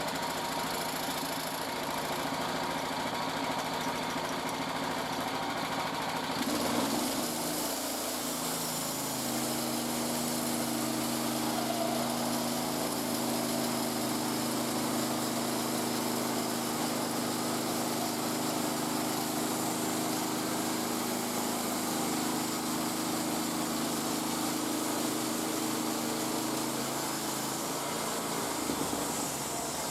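Portable bandsaw mill's small engine running steadily with the blade going. About seven seconds in, the sound shifts and a steady hum settles in, then it eases near the end.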